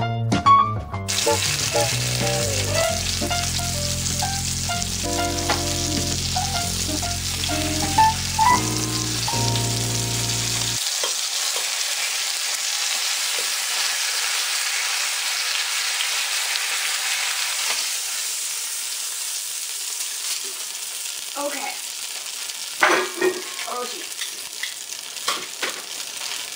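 A browned chuck roast sizzling steadily in an enameled cast-iron Dutch oven. Background music plays over it and cuts off about eleven seconds in. Near the end come a few knocks and clatters as the roast is handled with tongs.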